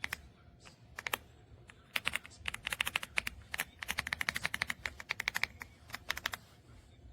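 Typing on an EPOMAKER x Aula F75 gasket-mounted mechanical keyboard. A few single keystrokes come first, then a fast, steady run of keystrokes starts about two seconds in and stops near the end.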